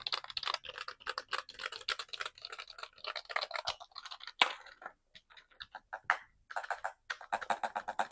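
Typing on an EWEADN F98 keyboard: quick runs of key clicks that thin out to scattered strokes about halfway through, then pick up again in a fast burst near the end.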